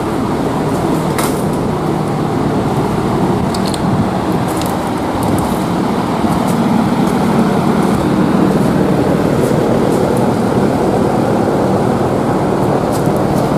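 Large drum fan running: a steady loud rush with a low hum, a little louder from about halfway through. A few faint clicks.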